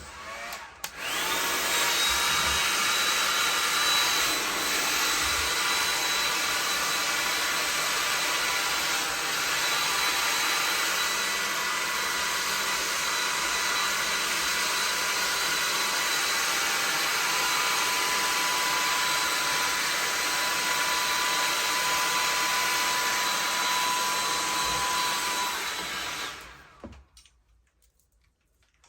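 Hand-held hair dryer running steadily as it blows a damp wig dry, switched on about a second in and cut off shortly before the end.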